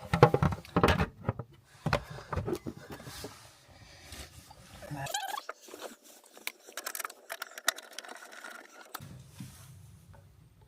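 Knocks, clicks and scrapes of the lid being fitted back onto an intruder alarm unit after a battery change, loudest in the first two seconds, then quieter scattered clicks and handling.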